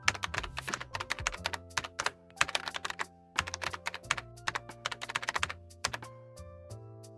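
Computer keyboard typing: several quick runs of key clicks that stop about five and a half seconds in, over background music with steady sustained notes.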